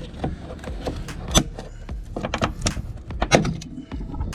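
Irregular sharp clicks and knocks, a few of them louder, from working a small plastic fender bracket and its rivet loose from a Jeep JL rear fender by hand.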